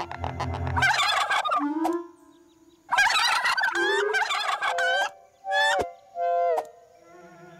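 Cartoon turkey gobbling: two long gobbles, the second starting about three seconds in, then two short calls.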